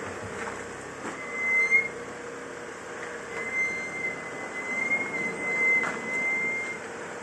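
Geely Coolray's brakes squealing, the morning brake squeak the owner likens to a creaking cart. A high, steady squeal comes briefly about a second in, then again for nearly four seconds from about three seconds in.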